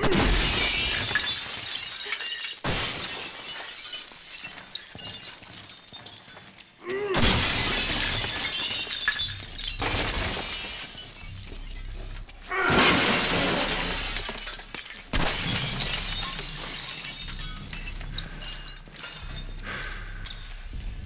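Glass shattering and showering down in loud waves that start suddenly at the outset and again about 7, 12.5 and 15 seconds in, each tailing off over a few seconds.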